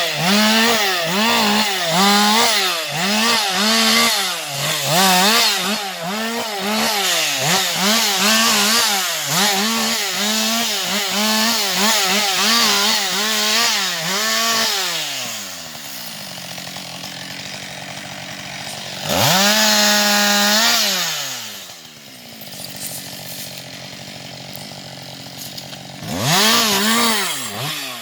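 Husqvarna 560XP two-stroke chainsaw cutting wood, its engine pitch dipping and recovering about once a second as the chain loads up. About halfway through it drops to idle, is revved once for a couple of seconds, idles again, then goes back to cutting near the end.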